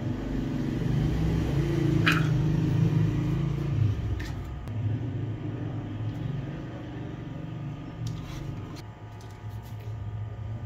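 A steady low rumble or hum, like a running machine, with a few short light clicks and taps from bowls and ingredients being handled.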